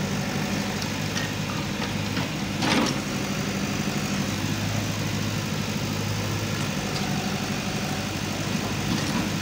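Tata TH86 backhoe loader's diesel engine running steadily as the backhoe arm works, with one brief, louder burst of noise about two and a half seconds in.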